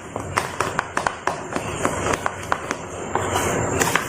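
A spoon stirring dhokla batter in a bowl, its rim and sides giving quick, irregular clicks several times a second.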